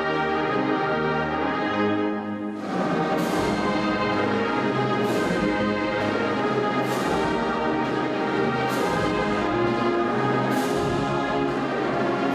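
Brass band playing a slow, stately piece, plausibly the alma mater, held chords throughout. From about two and a half seconds in, sharp ringing hits fall about every two seconds.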